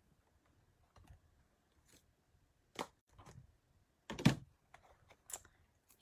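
A few scattered taps and clicks of cardstock pieces and craft supplies being handled on a work table. The loudest tap comes a little after four seconds in.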